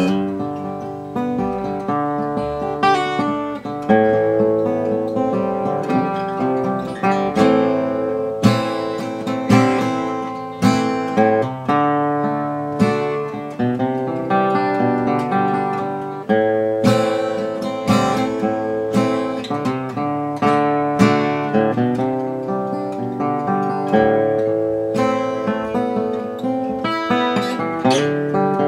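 1945–46 Gibson LG-2 flat-top acoustic guitar played solo, fingerpicked chords and single notes with sharp strummed strokes every second or so.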